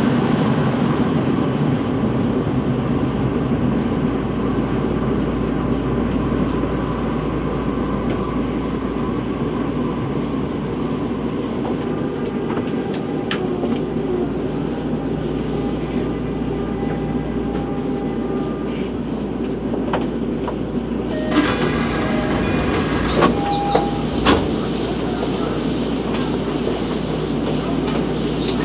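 Interior running noise of a Toei 12-600 series linear-motor subway car, a steady rumble that slowly fades as the train slows on its approach to a station. About three-quarters of the way through the sound opens up, and a few sharp clacks are heard.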